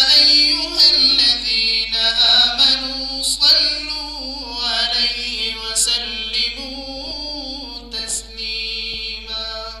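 A male qari's solo voice chanting a melodic recitation into a microphone, in long held, wavering phrases that stop at the very end.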